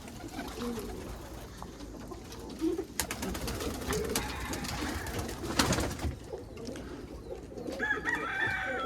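Domestic pigeons cooing in a loft, low warbling coos throughout, with two sharp knocks about three and five and a half seconds in.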